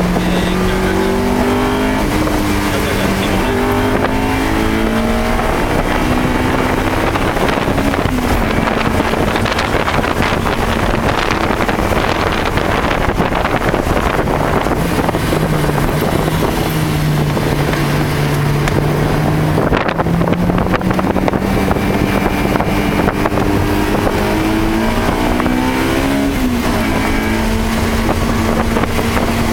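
Car engine heard from inside the cabin, lapping a wet race track. The revs climb through several gear changes over the first eight seconds, settle into a lower steady drone, then climb through the gears again near the end. A constant hiss of tyre spray and wind runs underneath.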